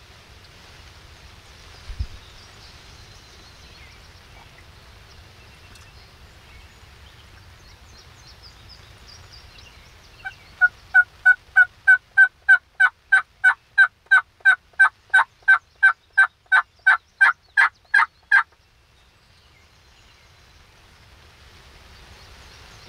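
Diaphragm mouth turkey call running a long, fast series of about twenty two-note hen yelps, roughly three a second, about ten seconds in. Before it there is a low steady wind hiss and a single low thump about two seconds in.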